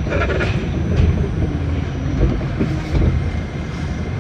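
R68 subway car heard from inside, running slowly along a station platform as it comes to a stop: a steady rumble of wheels on the rails with some clicking, and a brief whine about two to three seconds in.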